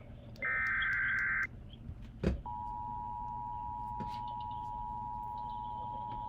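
Emergency Alert System broadcast: a one-second burst of SAME header data tones near the start, a click, then the steady two-tone EAS attention signal begins about two and a half seconds in and holds.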